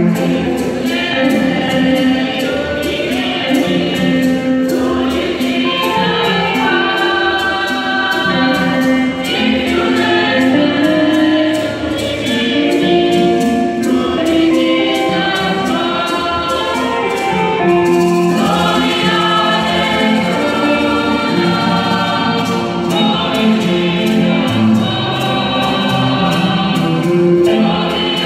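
Congolese gospel choir singing a liturgical song in many voices, over a steady light beat.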